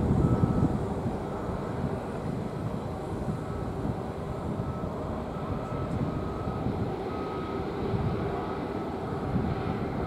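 Steady low rumble of an ATR 72-500's turboprop engines on approach. A vehicle's reversing alarm beeps at a high pitch about once a second over it.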